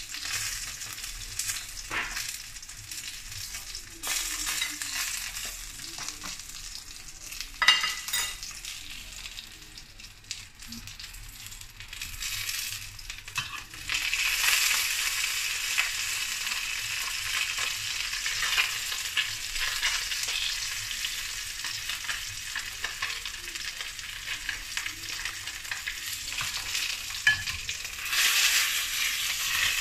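A threadfin fish fillet sizzling as it pan-fries in oil in a wok, with a steady hiss that gets louder about halfway through. There is a sharp click about eight seconds in, and near the end a louder burst of sizzle as the fillet is turned over with a spatula.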